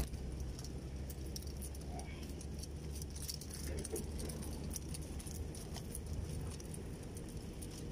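Faint outdoor background: a steady low rumble with scattered small, light clicks and clinks.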